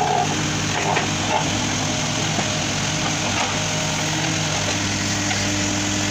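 JCB 3CX backhoe loader's diesel engine running steadily under load as the backhoe arm lifts and swings a bucket of soil, with a few light knocks in the first second or so.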